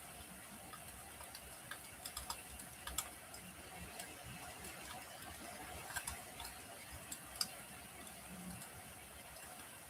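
Wood fire crackling faintly in a fireplace: a soft steady hiss broken by a handful of sharp, separate pops from the burning logs.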